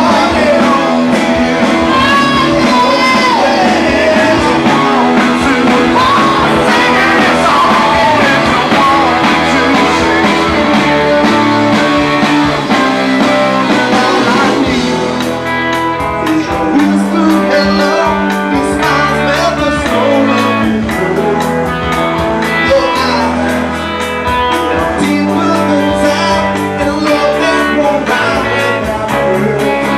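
Live rock band playing loud, with electric guitars through Marshall amplifiers, bass, drums and singing. About halfway through, a steady cymbal beat comes in under the held guitar chords.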